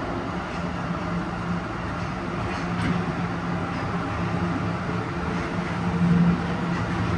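Tokyo Metro Ginza Line subway train running through a tunnel, heard from inside the car: a steady rumble with a low hum.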